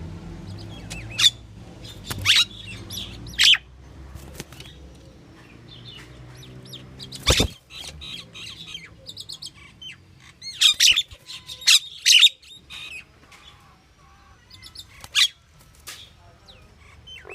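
Pied myna (Asian pied starling) giving a series of short, sharp chirps and squawks in separate bursts, with a quick flurry of calls about two-thirds of the way through.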